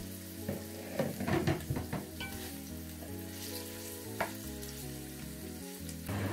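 Sliced onions sizzling in hot oil in a pot while a wooden spoon stirs them, knocking and scraping against the pot, most busily between about one and two seconds in.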